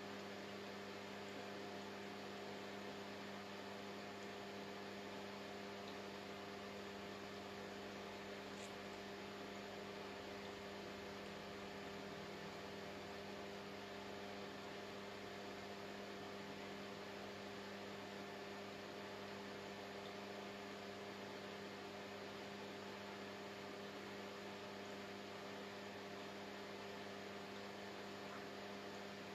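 Steady electrical hum of several constant low tones over a faint even hiss: quiet room tone with no one speaking.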